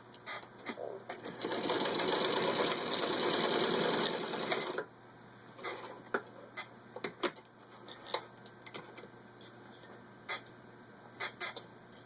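A 1946 Singer 15-90 sewing machine runs for about three seconds, stitching through four layers of vinyl upholstery, then stops abruptly. A scattering of light clicks and knocks follows.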